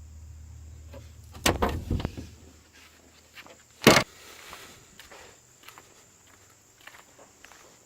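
A low hum, then a cluster of knocks and clatter about a second and a half in and one loud knock about four seconds in, followed by faint scattered clicks and taps.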